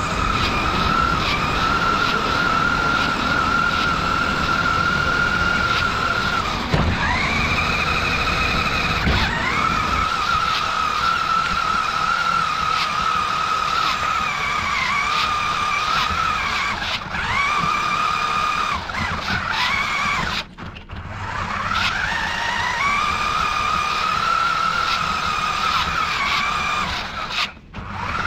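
Electric motor and gears of a Maisto radio-controlled monster truck whining as it drives, the pitch rising as it speeds up and falling as it slows, over the rumble of its tyres on the ground. The whine cuts out briefly twice in the second half.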